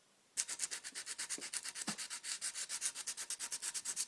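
Coarse 80-grit sandpaper rubbed by hand over the kerb-damaged edge of an alloy wheel rim, in quick, even back-and-forth strokes that start a moment in, sanding out the gutter rash.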